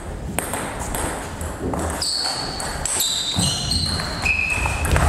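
Table tennis rally: the ball clicking sharply off bats and table in an irregular series, with high squeaks of shoes on the hall floor from about two seconds in and low thuds of players' footwork.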